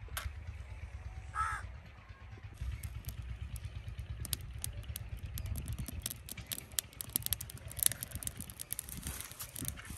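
A matchstick struck, then dry twigs and leaves crackling and snapping in a clay stove as they catch fire. The crackles come thick and irregular from about two and a half seconds in.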